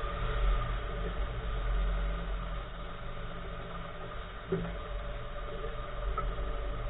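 2014 Nissan March with a steady low road and engine rumble, and a single clunk from the right front wheel about four and a half seconds in, with fainter knocks near the end. The clunk is a suspension or steering fault of unknown cause in the right front wheel.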